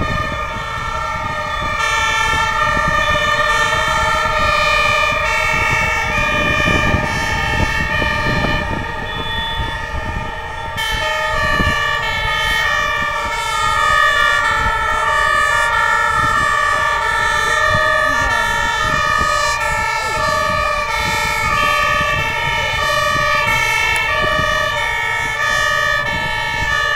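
Several fire engines' two-tone sirens sounding at once, their alternating tones overlapping out of step; more sirens join about eleven seconds in.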